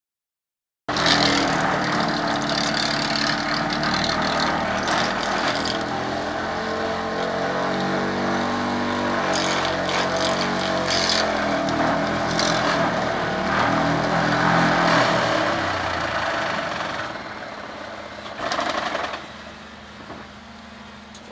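Excavator-mounted hydraulic vibratory pile hammer running loud and steady over the excavator's engine, its pitch dipping and rising partway through. It then winds down, with one short loud burst before the excavator engine is left running quietly. The first second is silent.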